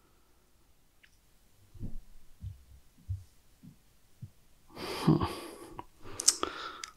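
Quiet handling of playing cards on a cloth playmat: a few soft low thumps, then a short rustle with sharp clicks about five seconds in.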